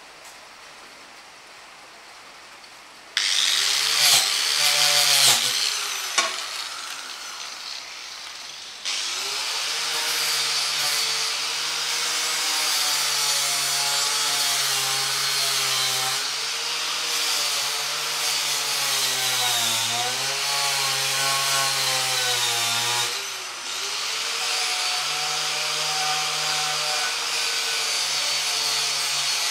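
Corded handheld electric power tool grinding against a metal ammo box. It starts about three seconds in, running unevenly with its speed rising and falling, stops briefly, then starts again and runs steadily, its pitch dipping briefly now and then. There is a soft hiss of rain before it starts.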